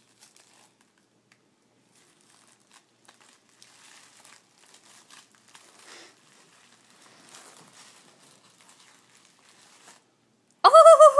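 Tissue-paper gift wrapping crinkling and rustling softly in short, scattered handfuls as a small child pulls at it. Near the end a loud, high voice cries out.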